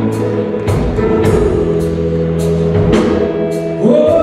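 Live rock band playing a slow ballad: drum kit with cymbal hits on a steady slow beat over held guitar, bass and organ chords, with backing singers coming in on a rising note near the end.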